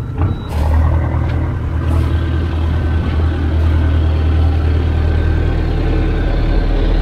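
A boat's engine running steadily with a low hum, getting louder about half a second in.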